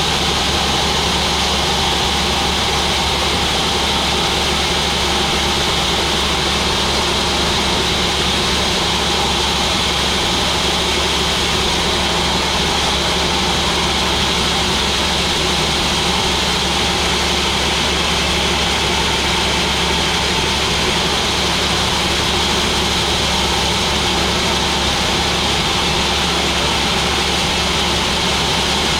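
Sawmill machinery running with a steady, unchanging mechanical drone, a low hum under a bright hiss, with no pauses or changes.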